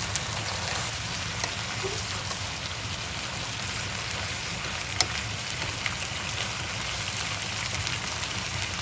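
Food sizzling in a cooking pan: a steady hiss with a few sharp pops.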